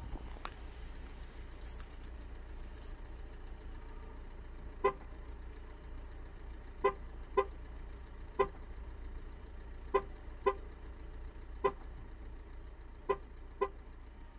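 VW Passat B8's horn giving short lock-confirmation chirps as the car is locked by remote key with its engine idling. There are nine brief chirps, some single and some in quick pairs, over the steady low hum of the idling engine.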